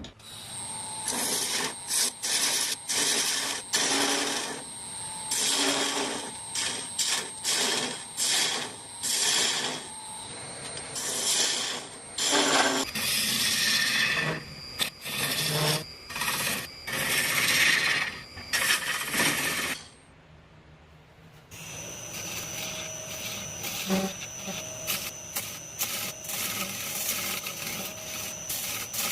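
Wood lathe turning, with a tool cutting into the spinning wood in repeated bursts of shaving and scraping noise over a steady machine tone. Near two-thirds of the way through the sound cuts to a steadier, continuous cutting run.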